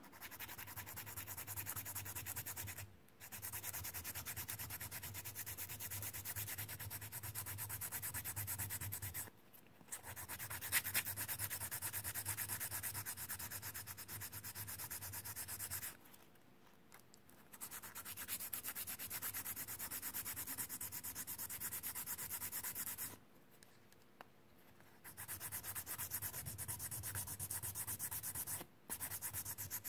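A flat abrasive file is rubbed quickly back and forth over a hardened resin cabochon in a metal bezel. The rasping runs in long spells with a few short breaks. The filing wears the dried nail polish off the raised parts of the design.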